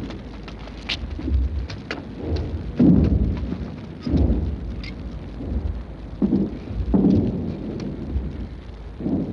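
Film battlefield sound effects: a continuous low rumble of distant artillery, with repeated dull booms and scattered sharp cracks.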